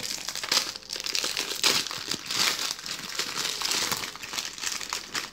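Packaging crinkling and rustling in irregular bursts as the parcel's wrapping is handled during unboxing.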